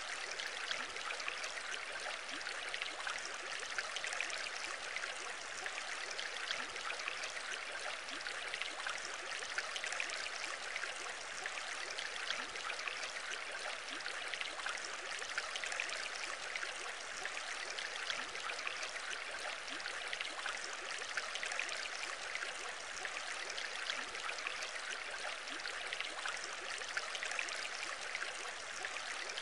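Steady bubbling and trickling of a home aquarium's aeration: a constant fine fizz of many small air bubbles breaking at the water surface.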